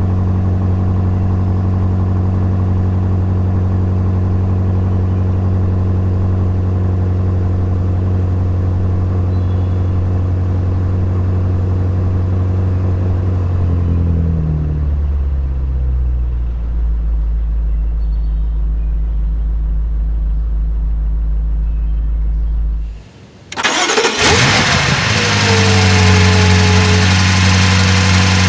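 Cold starts of a 2019 BMW M5 Competition's twin-turbo V8 with the exhaust valves open in Sport Plus. The engine runs at a high cold idle and its pitch steps down about halfway through. After a short break it fires up again loudly near the end and settles into a steady idle.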